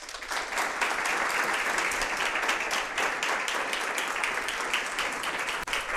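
Audience applauding: many hands clapping densely, starting suddenly and keeping up steadily.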